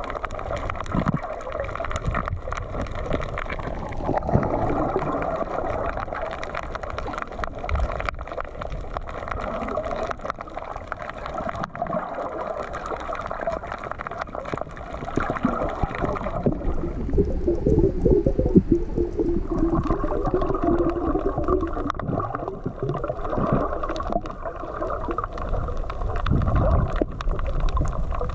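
Underwater sound picked up by a camera submerged on a coral reef: a steady, muffled wash of water dotted with many small clicks and crackles, with a wavering lower rumble for a few seconds past the middle.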